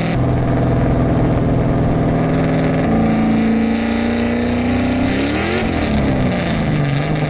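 A Mazda Miata's swapped-in 6.2-litre LS3 V8 pulling under acceleration, heard from inside the cabin, its revs climbing from about 2,500 toward 4,000 rpm. The engine note drops near the end.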